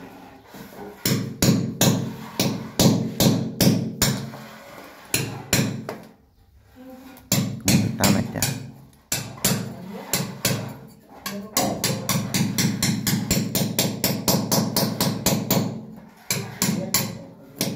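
A hammer striking a chisel held against a ceramic-tiled wall, chipping out the tile: a run of sharp, ringing blows with short pauses, then a fast, steady run of about five strikes a second in the second half.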